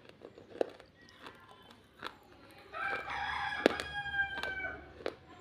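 Sharp crunches of baked clay pot pieces being bitten, about one a second. In the middle a long pitched animal call lasting about two seconds rises above them and is the loudest sound.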